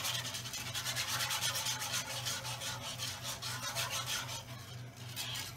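Wire balloon whisk scraping around a frying pan as flour is whisked into gravy so there are no clumps: quick, even scratching strokes, several a second, that ease off near the end. A steady low hum runs underneath.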